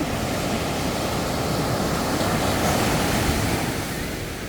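Strong sea waves breaking and washing up the beach: a rush of surf noise that swells and then eases off near the end.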